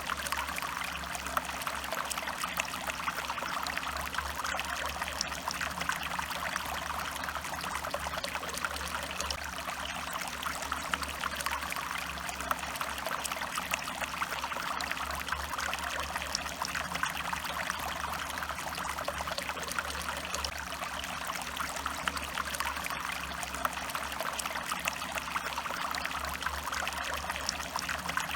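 Stream water running and trickling in a steady, unbroken flow.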